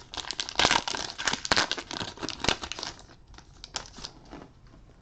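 Foil Pokémon booster pack wrapper being torn open and crinkled: dense crackling for about three seconds, then only a few faint rustles.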